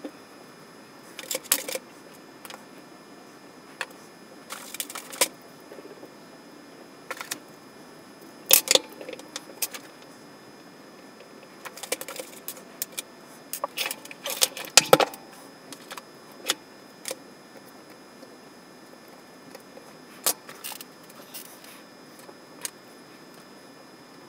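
Irregular small metallic clicks and clinks of a Penn 113H Senator reel's parts and hand tools being handled and set down on a wooden workbench during reassembly. Short clusters of louder knocks come about a third of the way in and again past the middle.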